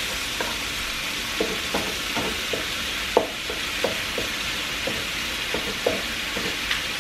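Ground beef sizzling as it browns in a metal skillet, with a wooden spoon stirring it and knocking against the pan in short, irregular taps. The sharpest tap comes about three seconds in.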